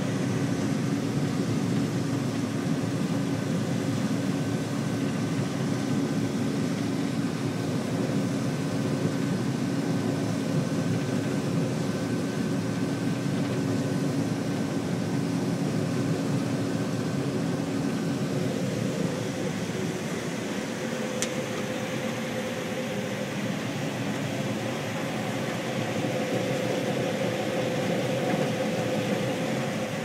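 Combine harvester running steadily while harvesting corn, heard from inside the cab: a continuous machine drone with a few steady hums, and one brief click a little past the middle.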